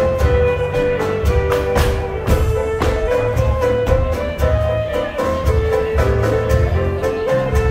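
Live contra dance band playing a dance tune: a melody line over a steady beat and bass.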